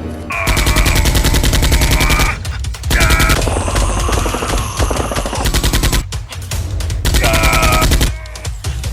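Rapid automatic gunfire sound effects, in three long bursts with short breaks between them, over background music.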